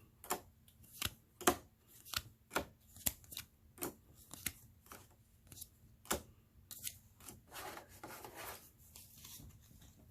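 Board game cards being laid down one at a time on a table, a crisp snap about twice a second, then a softer rustle of the cards being handled near the end.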